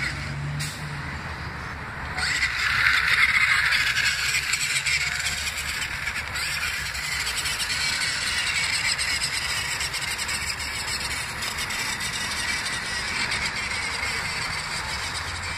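Small electric radio-controlled toy truck's motor and gears whining as it climbs a bark-mulch slope, loudest a couple of seconds in, over steady road traffic.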